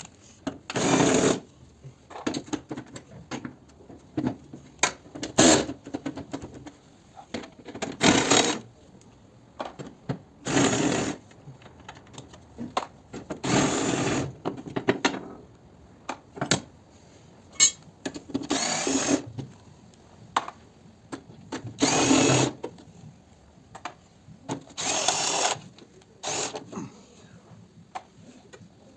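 A handheld power tool runs in short bursts of about a second each, roughly eight times, with pauses between.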